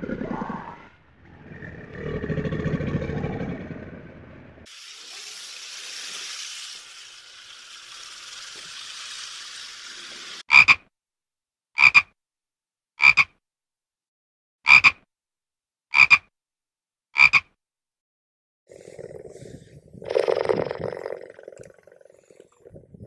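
Frog croaking: six short, loud calls about one and a quarter seconds apart. Before them comes a low growl and then a steady hiss lasting about six seconds; a lower animal call follows near the end.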